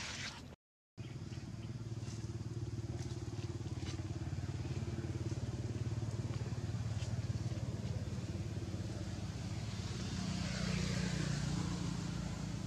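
An engine running steadily with a low, even hum, after a brief dropout just under a second in; a rushing noise swells near the end.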